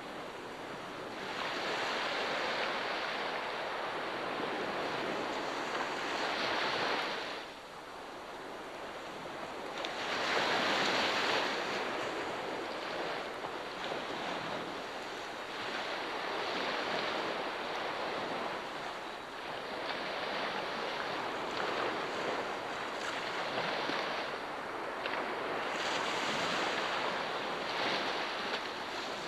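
Ocean surf washing onto the shore, swelling and easing in surges every few seconds.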